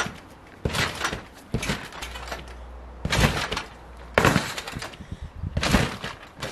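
Someone bouncing and flipping on a netted trampoline: about five landings, one every second or so, each a short noisy crash of the mat and safety net.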